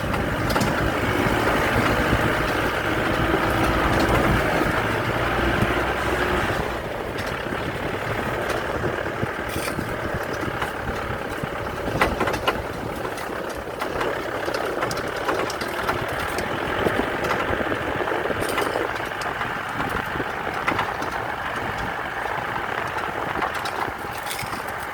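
A motor vehicle's engine running steadily, heard from on board, with scattered clicks and knocks. The sound drops a little about six seconds in.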